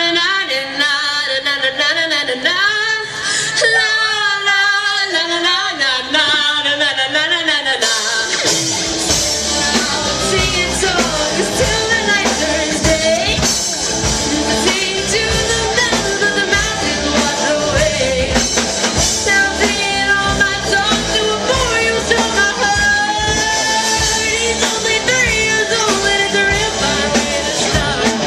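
Live rock band with a female lead singer. Her voice carries the first several seconds over sparse backing, then drums, bass and electric guitars come in at full strength about eight seconds in and play on under her singing.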